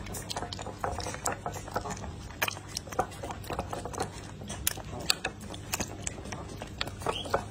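Dog lapping water: an uneven run of short wet clicks and slurps, several a second.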